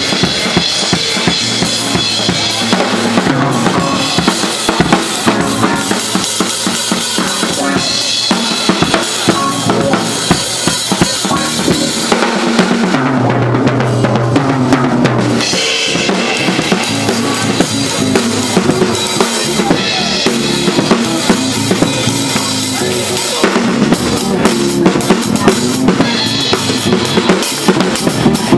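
Live jazz-funk band with the drum kit to the fore: snare, bass drum, rimshots and cymbals keep up a busy groove over bass notes and electric guitar. The cymbals drop out for a couple of seconds about halfway through.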